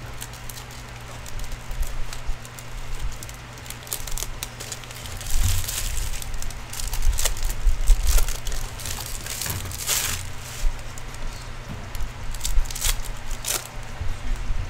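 Foil wrappers of 2018-19 Upper Deck hockey card packs being torn open and handled, an irregular crinkling and crackling over a steady low hum.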